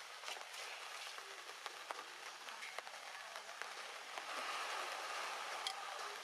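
Water drops pattering on leaves, many small ticks over a steady hiss, growing louder about four seconds in.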